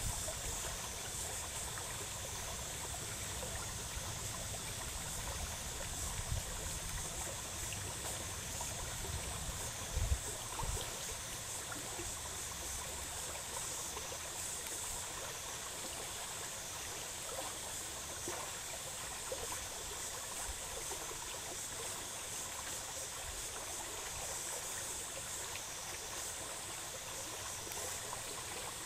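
Shallow stream flowing steadily over rocks, a constant rushing and trickling. A brief dull knock about ten seconds in.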